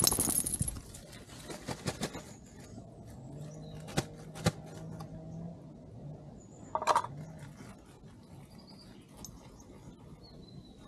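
Loud close rustling and clattering as a beagle on a lead noses about right at the camera, loudest in the first second, followed by a few scattered sharp clicks. A faint low drone comes in for a couple of seconds in the middle.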